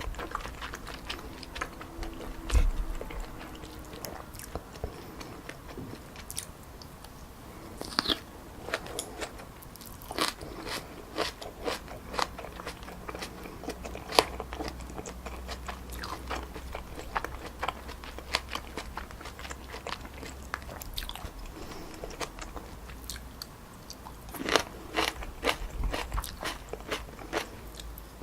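Close-miked eating of stir-fried wide glass noodles with pork neck and vegetables: irregular chewing, slurping and wet mouth clicks, with a few crisper crunches from the green onion and onion.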